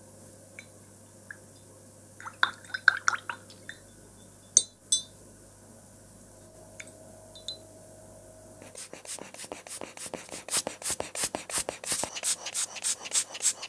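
Small metal watch parts held in tweezers are rinsed in a glass jar of distilled water: light splashes and clinks of metal and tweezers against the glass, with two sharp taps near the middle. From about nine seconds in comes a quick run of air puffs from a hand bulb air blower drying the rinsed parts.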